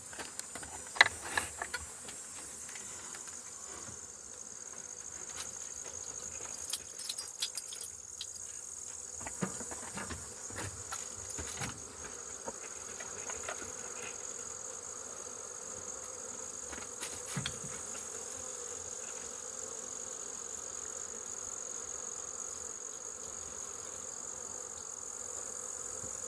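Steady insect buzzing with a high-pitched drone, and honeybees humming at an open hive. Scattered clicks, knocks and clinks of hive boxes and frames being handled come about a second in, then on and off between about six and twelve seconds, with one more near seventeen seconds.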